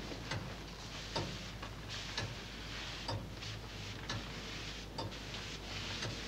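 Longcase (grandfather) clock ticking, about one tick a second, with soft shuffling footsteps on the floor underneath.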